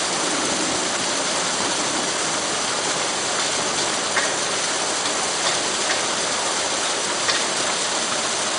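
Waterfall: a steady rush of falling water with a few brief, sharper ticks standing out.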